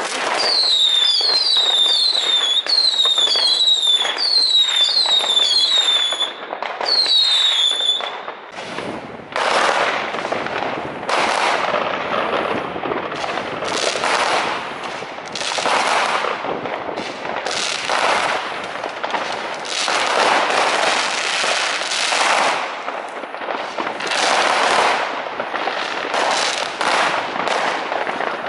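Consumer fireworks: for the first eight seconds a quick series of short whistles, each falling in pitch, over sharp cracks, then a dense run of bangs and crackling bursts.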